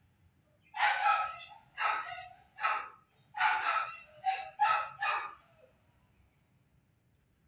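Kitten meowing: a run of about seven short, high meows over some four seconds.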